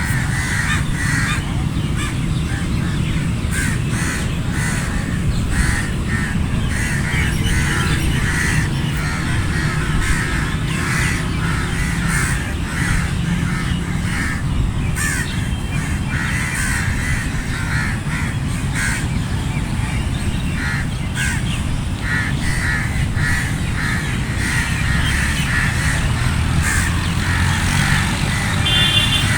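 A flock of crows cawing, many short caws repeating and overlapping throughout, over a steady low rumble.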